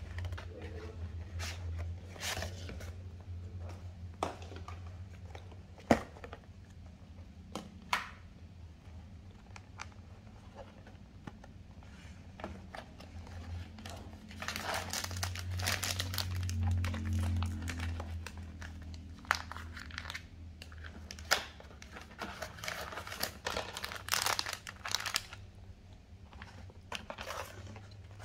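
Foil sachets and plastic packaging of a self-heating hotpot kit crinkling and rustling as they are handled and unpacked, with a few sharp clicks along the way. A low steady hum runs underneath.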